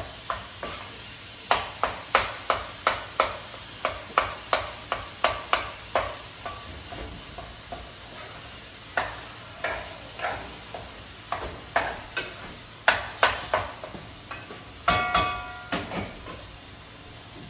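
Ground meat being stirred and broken up in a frying pan: sharp knocks and scrapes of the utensil against the pan, in quick runs of two or three a second, then sparser, over a faint sizzle of the meat browning. About fifteen seconds in, a brief metallic clank rings out.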